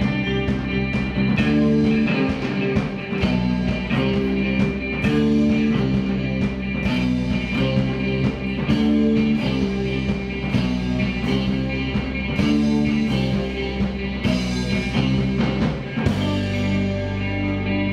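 Live rock band playing an instrumental with electric guitar, drums and keyboard over a repeating pattern of low notes. About two seconds before the end the low part settles into one held low note.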